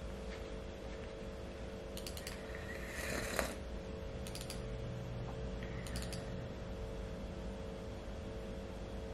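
A few sharp mechanical clicks and a short clatter about three seconds in, over a steady low hum.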